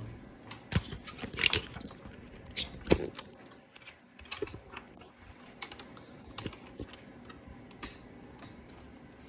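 Irregular light clicks and taps as a finger presses and taps an iPad's power button and handles the tablet, loudest in the first three seconds. The button clicks without a rattle, the sign that the sunken power button has been reseated.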